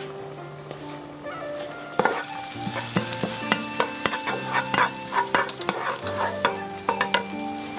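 Food sizzling in a pan while a utensil stirs it, with frequent sharp knocks and scrapes against the pan from about two seconds in.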